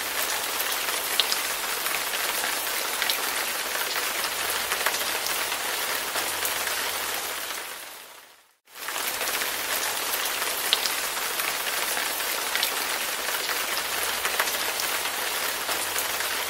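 Recorded rain falling steadily, with scattered sharp drop ticks. The recording fades out about eight seconds in and comes straight back in, as a repeating loop.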